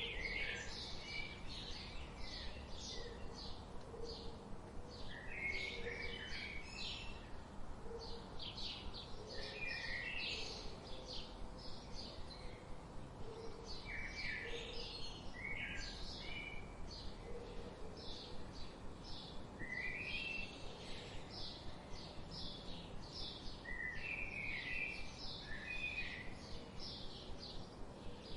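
Songbirds singing: a fast, steady string of short high chirps, several a second, with warbled song phrases breaking in every few seconds. A faint, low, cooing call repeats underneath over a steady background hiss.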